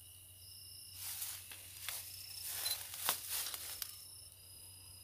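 Insects trilling steadily in several high, thin tones, with rustling and handling noise between about one and four seconds in.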